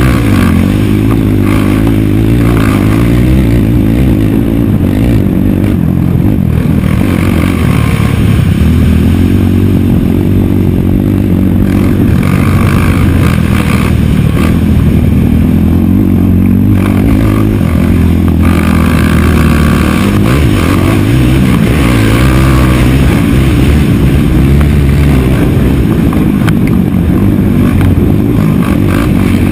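Racing quad bike's engine running hard on a dirt track, heard onboard, its pitch rising and dropping again and again as the rider accelerates, shifts and brakes through the course.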